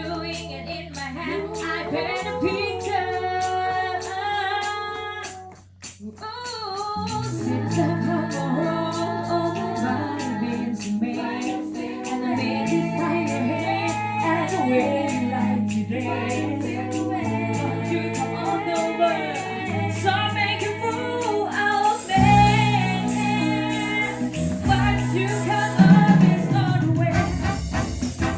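Thai luk thung band playing a song with a singer carrying the melody over a steady beat and bass line. The music drops out briefly about six seconds in, then resumes.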